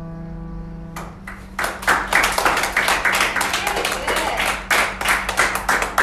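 The last chord on a digital piano is held and dies away, then a small group of children breaks into applause about a second in, with quick, uneven claps.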